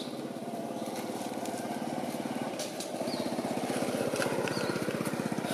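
A small engine running steadily nearby, slowly getting louder, with a few short high chirps over it.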